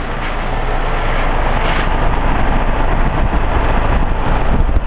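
2009 Rheem Classic Series 5-ton heat pump outdoor unit running in heat mode just after switching on: a steady hum of compressor and fan with a broad whooshing rush, growing a little louder over the first seconds.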